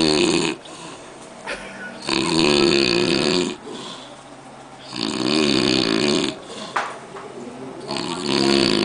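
A man snoring heavily in an even rhythm, one loud snore every two and a half to three seconds, each lasting over a second.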